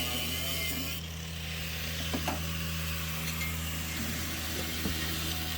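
An engine idling steadily, a low even hum, with a few light clicks and taps over it.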